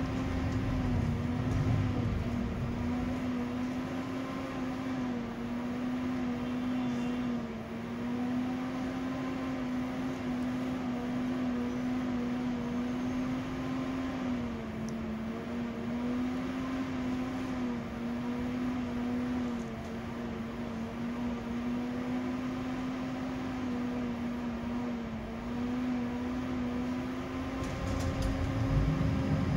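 Steady electrical hum inside a 71-931M Vityaz-M low-floor tram, a single tone with small brief dips in pitch, over a low rumble that grows louder near the end.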